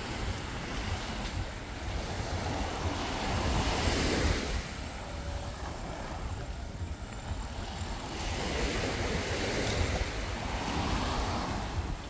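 Small Caribbean waves washing up on a sandy shore, the surf swelling twice about five seconds apart, with wind rumbling on the microphone throughout.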